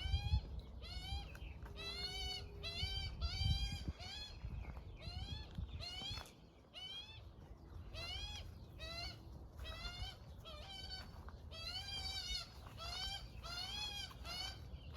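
Young magpie's begging calls: a long run of short squeaky calls, each rising in pitch, about two a second with brief pauses. A low rumble sits under the calls for the first few seconds.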